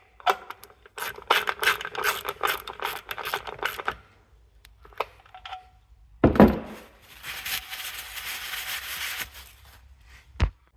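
Workshop handling noises: a run of rapid clicks and rattles, a heavy thump about six seconds in, a few seconds of steady hiss, then a single sharp knock near the end.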